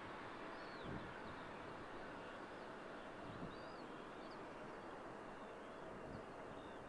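Distant airliner jet engines running, heard as a faint steady rumble with a thin whine, while small birds chirp briefly several times over it.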